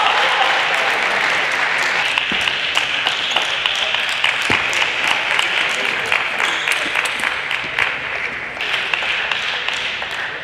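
Audience applauding: a dense patter of many hands clapping that slowly fades toward the end.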